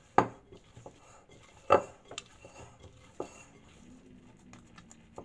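Hands punching down risen bread dough in a glass bowl to knock the air out. Two sharp knocks against the glass, about a second and a half apart, then a few softer taps.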